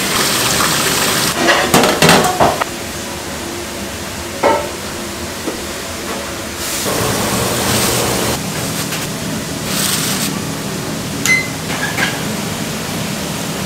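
Tap water gushing into a large stainless-steel pot, followed by metal clinks and clanks of steel pots and bowls being handled; a second stretch of rushing noise comes about seven seconds in.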